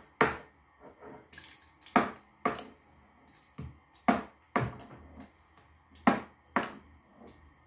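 Metal pizza-cutter wheel knocking on the countertop as it is pressed through a rope of dough. The sharp clicks come in pairs about half a second apart, roughly every two seconds.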